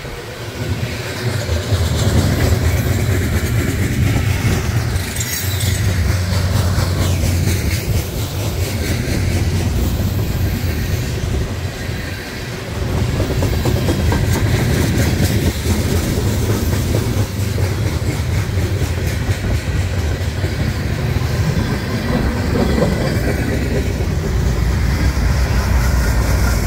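Freight cars of a manifest train rolling past: steady rumble of steel wheels on rail, with clickety-clack over the rail joints.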